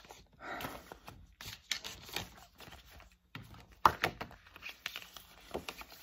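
Paper leaflets and brochures rustling as they are handled and fanned out, with a couple of sharp ticks a little before four seconds in.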